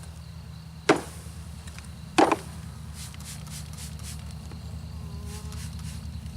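Two sharp knocks about a second and a half apart, the second slightly longer, over the steady low hum of a mass of honey bees.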